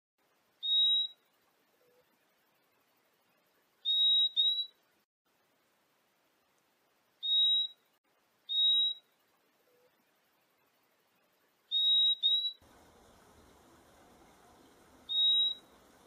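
Purple-throated euphonia (fim-fim) calling: short, clear whistled notes, eight in all, some single and some in quick pairs. A faint background hiss comes in after about twelve seconds.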